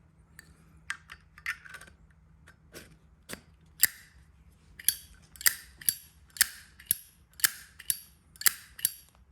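Zippo lighter, brass case with a brushed chrome finish, having its lid flipped open and snapped shut over and over: sharp metallic clicks, a few scattered ones at first, then a steady run of about two a second in the second half.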